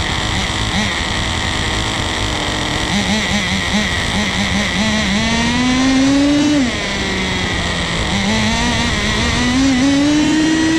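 Nitro RC car's small two-stroke glow engine, fitted with a tiny turbo, running and revving as the car drives. Its pitch wavers, climbs under throttle, drops sharply about two-thirds of the way through, then climbs again near the end.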